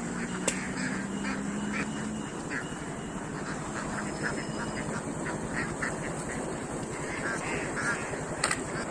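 Ducks quacking repeatedly, many short overlapping calls, over a steady background rumble.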